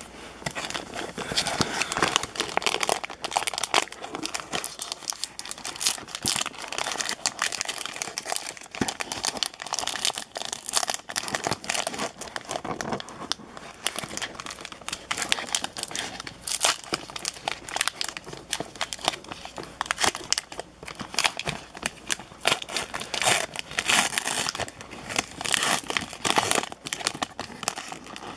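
Plastic wrapper of a 30-card basketball trading card pack crinkling and crackling continuously as it is handled, torn open and peeled back from the stack of cards.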